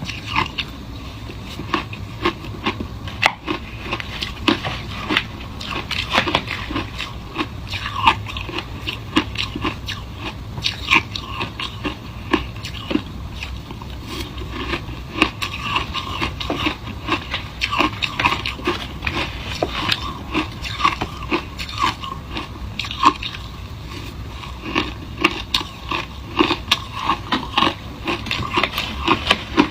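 A person biting and chewing shaved ice, with rapid, irregular crunches.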